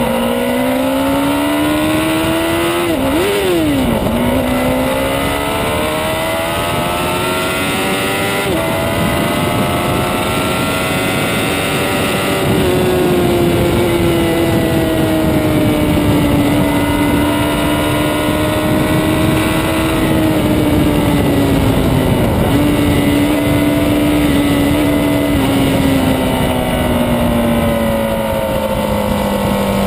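Honda CBR1000RR Fireblade's inline-four engine pulling hard, rising in pitch with a quick gear change about three seconds in and another dip in revs about nine seconds in. It then holds a fairly steady note and slowly falls toward the end. Wind rushing over the bike runs under it throughout.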